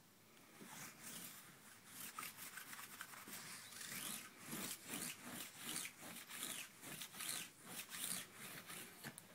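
Sticky lint roller rubbed back and forth across a quilted cotton bedspread in quick, uneven rasping strokes, teasing a cat.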